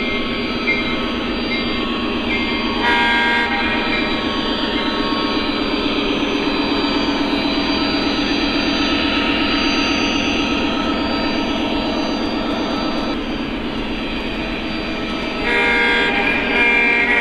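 Lionel Legacy SD40 O gauge model locomotive's sound system playing a steady diesel engine sound under way, over the clatter of the train rolling on the track. A multi-tone diesel horn sounds briefly about three seconds in and again, longer, near the end.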